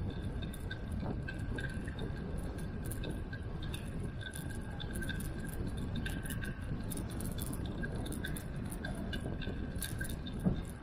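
Bicycle riding noise on a paved path: a steady low rumble of wind on the microphone and tyres, with frequent small rattling clicks and a faint steady high whine.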